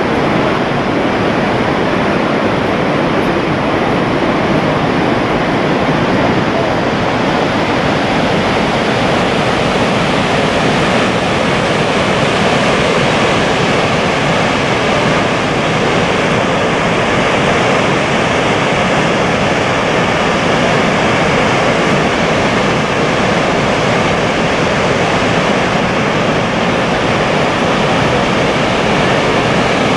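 Dettifoss waterfall's huge volume of falling and churning water making a loud, steady, unbroken rush.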